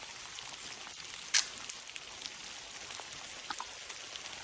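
Light rain pattering, with scattered drops ticking close by and one sharp click about a second and a half in.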